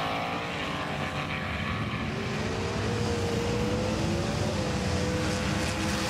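Steady engine-like drone over rushing noise, its pitch climbing slowly and then levelling off.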